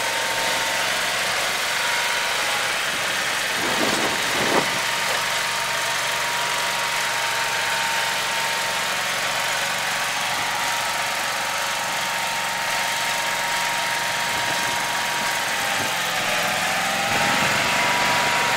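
A propane-powered Dixie Chopper zero-turn mower's engine running steadily, with a constant whine over the hum that wavers slightly near the end. There is a short knock about four and a half seconds in.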